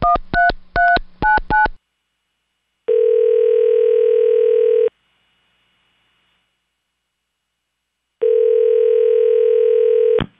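Touch-tone telephone keypad beeps as the last few digits of a number are dialed. After a short pause the call rings twice, each ringback tone about two seconds long, and it ends in a click as the line is answered.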